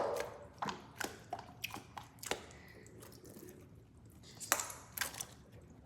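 Foam squishy toys being squeezed and handled in a sink of water: irregular short wet squelches, splashes and drips.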